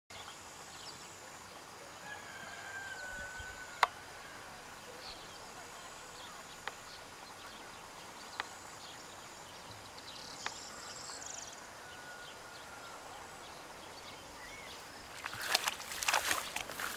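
Quiet outdoor pond ambience with faint whistling birdsong and a few sharp single clicks, the loudest about four seconds in. Near the end comes a burst of loud rustling and crunching footsteps.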